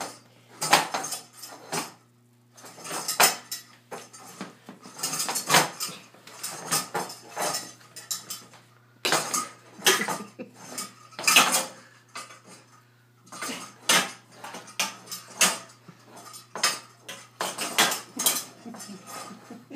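Two metal saucepans clanking and scraping on a hardwood floor as a toddler, standing with a foot in each, steps them along: an irregular clatter of knocks with short pauses between.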